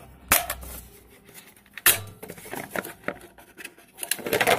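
Sharp knocks and clatter of hard parts being handled at a small generator as work on the air filter box begins. There are two single knocks, one just after the start and one about two seconds in, then a quick rattling cluster near the end.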